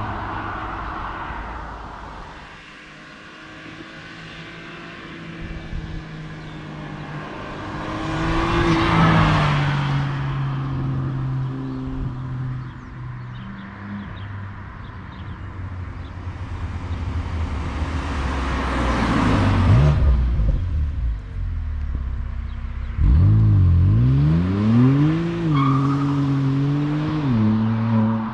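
BMW M4 Competition's 3.0-litre twin-turbo inline-six engine and sport exhaust running, swelling loud twice. Near the end a series of quick revs, pitch rising and falling, then it drops back to idle.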